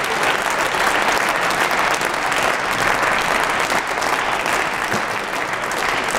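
Loud, steady applause from members of parliament clapping in a large plenary chamber at the end of a speech.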